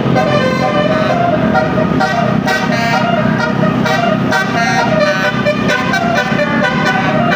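Telolet horn, a multi-tone melodic air horn, playing a fast run of changing notes over a steady low rumble.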